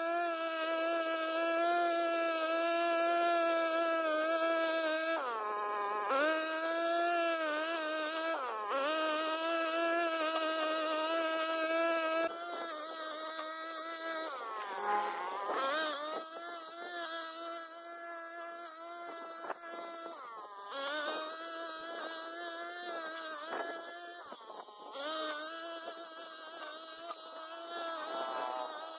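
Backpack brush cutter's engine running steadily as it cuts weeds: a continuous buzz whose pitch dips and recovers several times, most deeply about halfway through.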